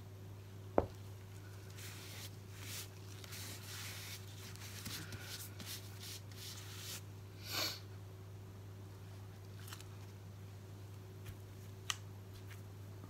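Gloved hands handling a paint cup and paper towels: one sharp click about a second in, then soft rustling and rubbing noises, over a low steady hum.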